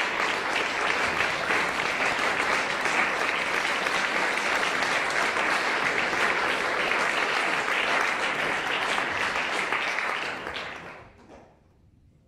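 Concert audience applauding, a dense steady clapping that fades away about ten and a half seconds in.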